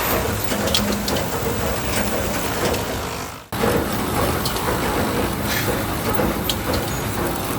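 A steady mechanical running noise with scattered light clicks, broken by a sudden brief drop-out about three and a half seconds in.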